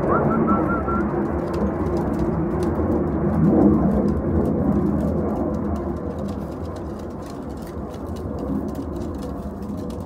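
Domestic pigeons cooing at a feeder over a steady rumbling noise; the sound is loudest about three and a half seconds in and eases off over the second half.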